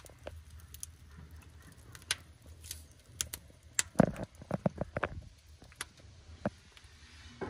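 Split logs burning in an offset smoker's firebox, crackling and popping with scattered sharp snaps. A quick run of louder, duller knocks comes about four to five seconds in.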